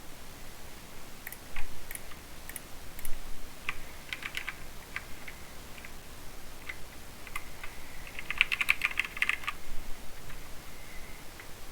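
Mechanical keyboard with Cherry MX Silver linear switches being typed on: scattered single keystrokes, then a quick run of keystrokes about eight seconds in.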